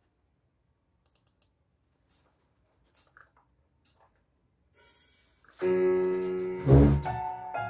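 Faint clicks of a Roland Aerophone's keys and buttons being pressed, then about five and a half seconds in, music starts: a loud held electronic note with a heavy low thump, running on into a string of notes.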